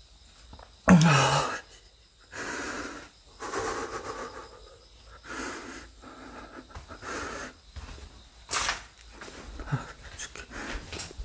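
A person breathing heavily close to the microphone: a short low vocal grunt about a second in, then a series of hissing breaths, and a sharp brief scrape later on.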